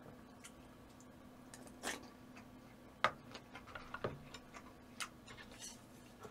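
Quiet eating sounds: a scattered handful of small sharp clicks and taps of utensils and mouth, the loudest about three seconds in, over a faint steady hum.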